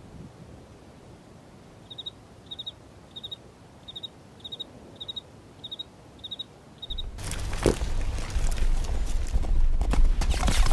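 Faint wind with a short high chirp repeated about twice a second, then, from about seven seconds in, the rumble of galloping horse hooves that grows steadily louder as the horses approach.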